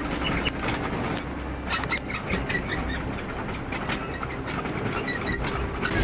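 Earthquake shaking: a low rumble under many short rattles and knocks.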